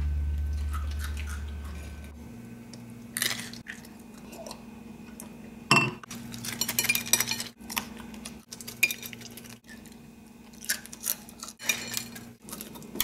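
A music chord fades out in the first two seconds, then scattered clinks of plates and glassware and chewing at a table.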